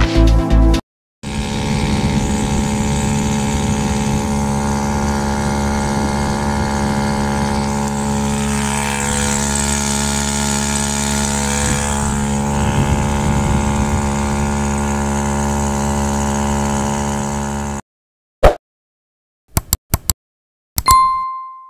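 Ltceco 3.5 hp two-stroke outboard motor running steadily for about sixteen seconds, after a brief end of electronic music. Near the end, a few clicks and a short bell-like ding.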